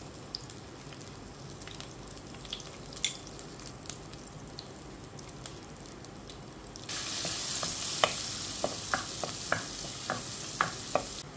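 Coconut slivers frying in coconut oil in a clay pot, with a faint crackle and occasional pops. About seven seconds in, a loud steady sizzle sets in, with repeated knocks of the stirring spoon against the pot, and it cuts off suddenly just before the end.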